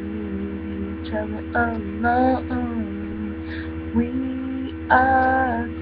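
A person singing unaccompanied in short phrases, with a held note near the end, over a steady electrical hum.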